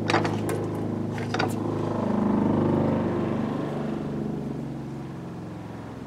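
ShurFlo 12-volt diaphragm fresh water pump in an RV running with a steady hum after the faucet is closed, with a few clicks in the first second and a half. The hum swells about two seconds in, then fades and cuts off at the end as the pump reaches pressure and the new 45 psi pressure switch shuts it off.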